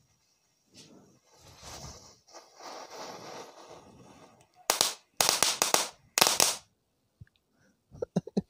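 Rooster-shaped firecracker (petasan ayam) fizzing as it sprays sparks, then going off in three bursts of loud, rapid cracks a little past the middle. A few faint clicks follow near the end.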